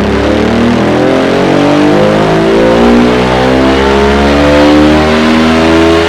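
Suzuki DL650 V-Strom's V-twin with a Dominator aftermarket muffler, loud and climbing steadily in pitch as it pulls up through the revs under load on a dyno.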